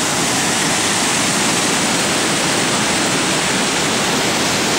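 Snowmelt waterfall rushing down over rock, a steady, loud wash of water noise.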